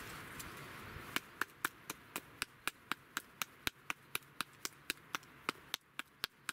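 Knife carving a feather stick from a stick of kindling braced on a wooden chopping round: quick, even strokes give sharp wooden clicks at about four a second, starting about a second in.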